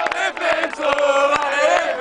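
Football crowd chanting and singing in unison to celebrate a goal, many voices holding long sung notes, with sharp claps or knocks scattered through.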